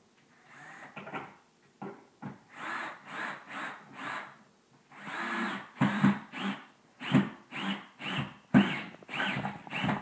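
Cordless drill driving a wood screw through an oak ski rack into a wall stud, run in many short trigger pulses, each a brief whine that rises and falls in pitch, with a longer run about five seconds in.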